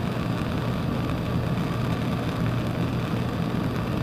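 Hand-held Bunsen burner flame running, a steady rushing noise with a low hum beneath it.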